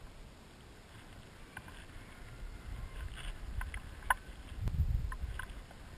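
Wind rumbling on the microphone of a low, moving camera, swelling to its loudest a little before the end. Over it come a scatter of faint short clicks and chirps.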